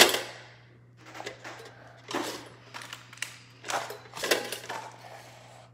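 A sharp knock as the plastic BeanBoozled game box is handled on the stone tabletop, followed by several short hissing noises.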